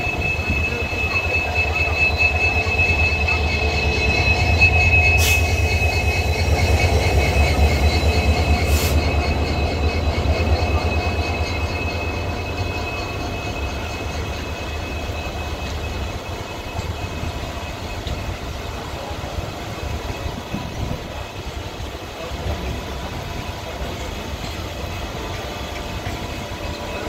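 WDP4D diesel locomotive's EMD two-stroke engine rumbling as it passes close alongside, loudest in the first ten seconds or so and then fading to a quieter train rumble as it draws away. A steady high-pitched squeal runs through the first half, with two sharp clicks about five and nine seconds in.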